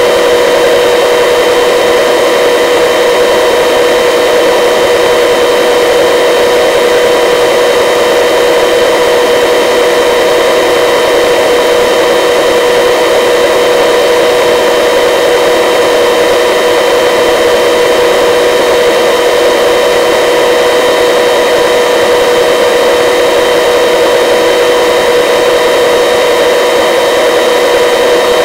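Helicopter in flight, heard on board: loud, steady engine and rotor noise with several unchanging high tones running through it.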